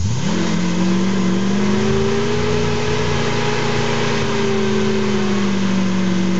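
Chevy 350 small-block V8 in an off-road Jeep revving up sharply at the start, then held at steady high revs as the vehicle pulls through deep mud.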